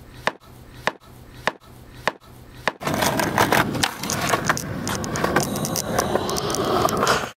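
Sharp wooden knocks about every half-second: a skateboard deck being slammed against a concrete ledge to break it. About three seconds in, a louder, rough, continuous noise with scattered clicks takes over, then cuts off suddenly near the end.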